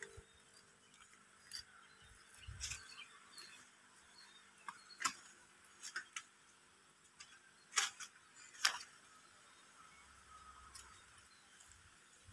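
Quiet background hiss broken by a few scattered sharp clicks and ticks, the two loudest about eight and nine seconds in, with a brief low thump a little after two seconds.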